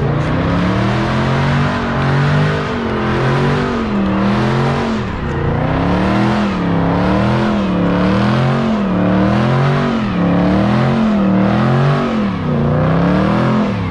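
Mopar V8 engine revved up and down over and over, its pitch rising and falling about once a second.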